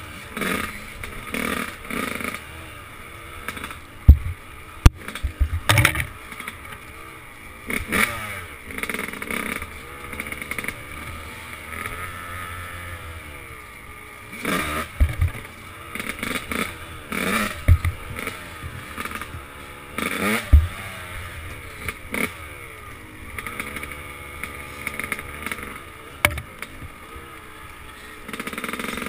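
Dirt bike engine revving up and down with the throttle while riding a rough trail, broken by several sharp knocks as the bike jolts over bumps.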